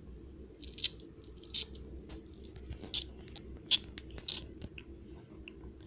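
Plastic toy soldiers being handled and set down on a plastic playset: an irregular run of short, sharp clicks, taps and scrapes over a low steady hum.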